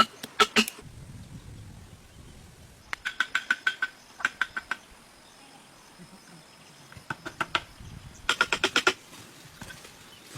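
Bursts of rapid sharp strikes from a hand tool working timber, about six strokes a second, each stroke ringing at the same few pitches. The bursts come five times, with quieter pauses between them.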